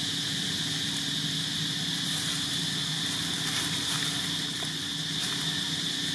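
Steady outdoor ambience: a constant high-pitched insect drone over a low, steady hum, with a few faint ticks.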